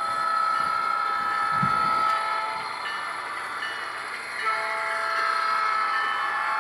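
An HO-scale EMD GP30 model's ESU LokSound decoder plays a diesel locomotive air horn through the model's small speaker. The first blast lasts about two and a half seconds, and a second blast starts about four and a half seconds in and is still sounding at the end.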